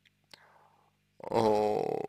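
A man's drawn-out hesitation sound, a long 'uh' starting about a second in that trails off into a creaky, rattling voice. A low steady electrical hum sits underneath.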